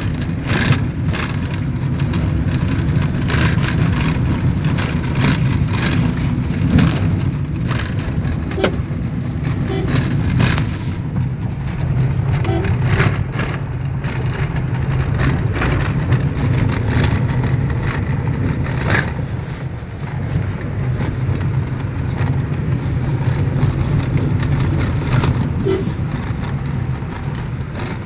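Road noise inside a moving car's cabin: a steady low rumble of engine and tyres on a rough dirt road, with frequent short knocks and rattles as the car goes over bumps.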